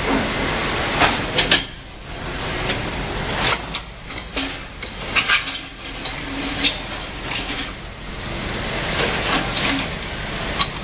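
Scattered sharp metal clanks and clinks from a street utility work site, with the loudest knock about a second and a half in, over a steady hiss of running machinery that drops away about two seconds in and returns later on.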